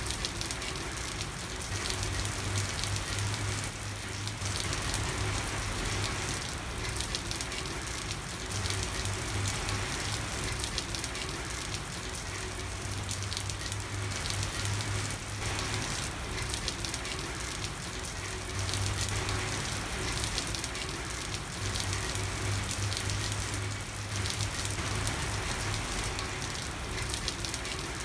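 Steady rain falling on a street: an even hiss of water with a dense spray of small drop ticks. A low hum fades in and out every few seconds underneath.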